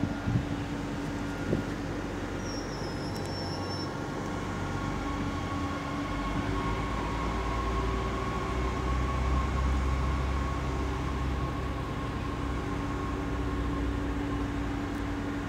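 SNCF AGC regional multiple unit standing close by with its engine and equipment running: a steady hum, with a deeper rumble that builds from about six seconds in.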